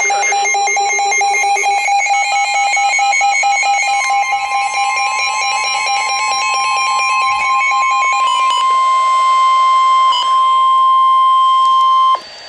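Weather-radio emergency alert tones: a loud, fast-pulsing alarm beep, joined about four seconds in by the steady 1050 Hz NOAA Weather Radio warning alarm tone. The beeping stops about eight and a half seconds in, and the steady tone cuts off suddenly near the end.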